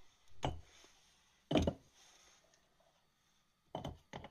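Chunks of cocoa butter dropped by hand into a mug, knocking against it: about four short knocks, spaced out, with two close together near the end.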